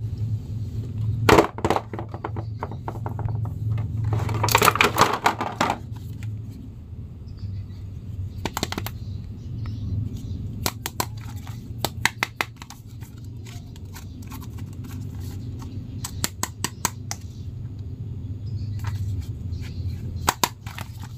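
Plastic action figures handled by hand over a clear plastic bag: scattered sharp clicks and taps of hard plastic, with a denser stretch of crinkling and clicking about four to six seconds in, over a low steady hum.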